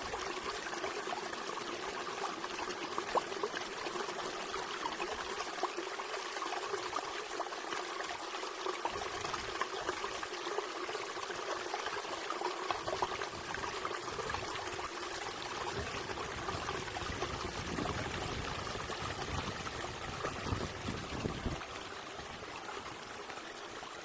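Running water trickling and splashing steadily, like a small stream. A low rumble comes and goes through the middle and later part.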